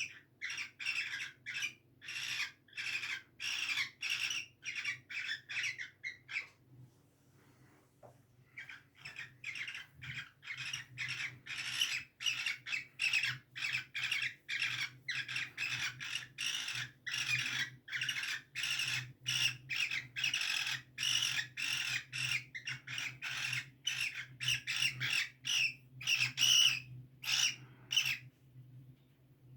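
Cockatiels calling in a rapid string of short, harsh squawks, about two a second. The calls break off for a couple of seconds about six seconds in, resume, and stop shortly before the end.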